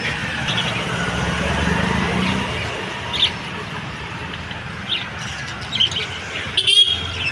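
Small pet parrots giving short chirps and squawks every second or so, the loudest call coming near the end. A steady low background rumble runs underneath.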